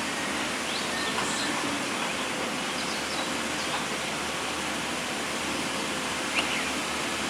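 Steady rushing noise with the faint, even hum of an excavator's engine running. A few short, high chirps come through it.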